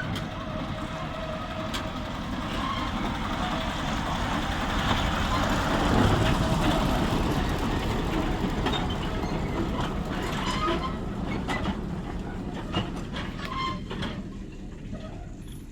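Narrow-gauge field railway train running in, its wheels screeching and squealing on the track amid rattling clicks. It grows louder to a peak about six seconds in, then fades.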